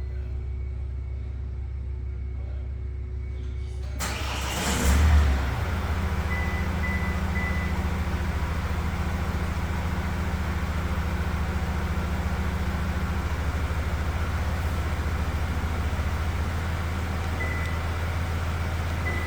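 Kia Sportage QL engine started by remote start: about four seconds in it cranks and fires with a short surge, then settles into a steady idle. A few short high beeps sound over it.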